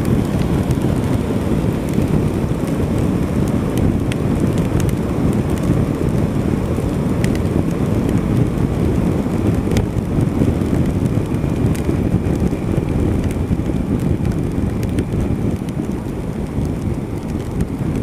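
Wind and heavy rain on the camera of a motorcycle riding at highway speed: a steady low rush of wind and wet-road tyre spray, with scattered light ticks, easing slightly near the end as the bike slows.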